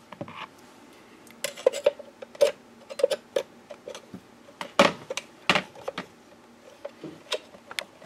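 Metal wrench and screwdriver clinking and tapping against the Darex Drill Doctor 750SP's diamond wheel and plastic housing as the wheel is twisted off its post: scattered sharp clicks, with two louder knocks about five seconds in.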